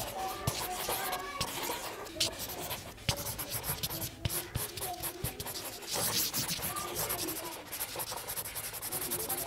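Broad chisel tip of an alcohol marker rubbing across drawing paper in many short, repeated strokes.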